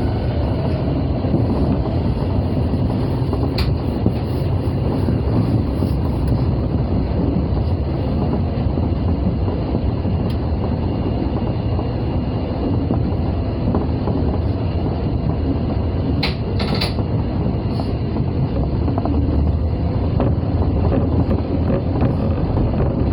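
Osaka Metro 22 series subway train running, a steady low rumble of wheels on rails and traction equipment heard from inside the leading car, with a couple of sharp clicks about two-thirds of the way through.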